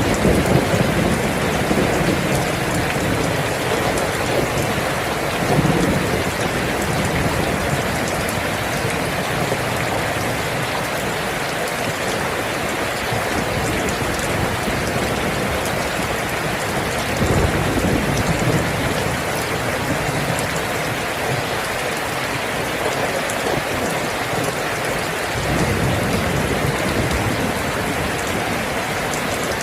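Steady rain falling, with low rumbles of thunder swelling up a few times, about a third and again two-thirds of the way through and near the end.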